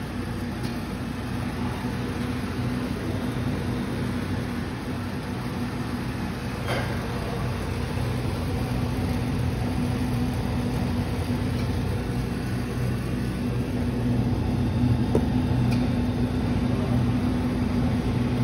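Probat Probatino 1 kg coffee roaster running hot with its gas burner lit: a steady machine hum with a low drone over a rushing noise, growing somewhat louder near the end. A single click about a third of the way in.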